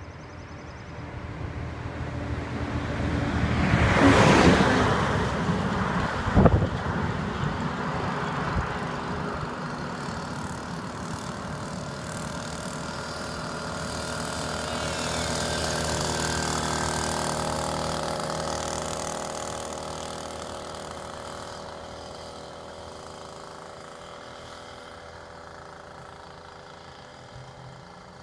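A car passes first, loudest about four seconds in, followed by a sharp click. Then the small two-stroke engine of a Skyhawk Wolverine motorized-bicycle kit, on its first tank of rich 18:1 fuel mix, comes closer with a buzzing note, drops in pitch as it passes and fades away down the road.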